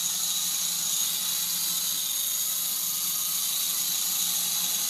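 Small contra-rotating (coaxial) RC helicopter hovering low, its electric motors and rotor blades giving a steady high whine.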